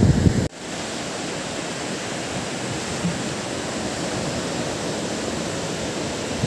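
Surf on a sandy beach: a steady wash of low waves breaking, starting abruptly about half a second in.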